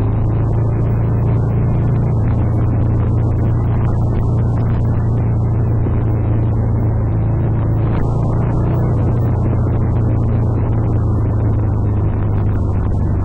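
Motorcycle engine running at steady revs while riding, heard from on the bike as a steady low hum with wind and road noise over it.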